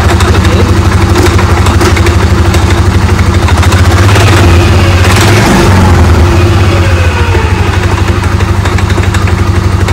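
Polaris Sportsman ATV engine idling with a steady pulsing beat, its CVT clutches exposed with the cover off. The engine note swells for a couple of seconds around the middle, then settles back to idle. The driven clutch is stopping at idle after a shim adjustment, a check for the creeping-at-idle fault.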